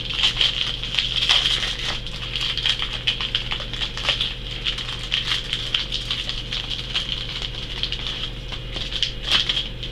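Thin foil wrapper of a Pokémon card booster pack crinkling and crackling as it is worked open by hand, a continuous run of small crackles, over a steady low hum.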